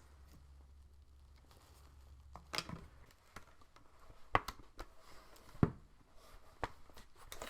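Sparse light clicks and taps from handling small parts and tools during laptop disassembly, about half a dozen in all, over a faint low hum for the first few seconds.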